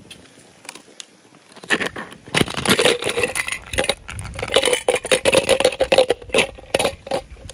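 Small die-cast toy cars rattling and clacking inside a clear plastic capsule as it is shaken, with cars tumbling out and clattering onto concrete. The rattling starts about a second and a half in and goes on in quick, dense clicks.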